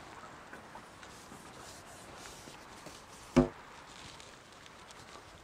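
A single sharp, hollow knock from the carbon fishing pole as it is shipped back while playing a fish, ringing briefly.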